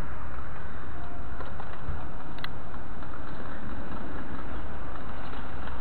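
Steady low rumbling noise with a few faint short clicks.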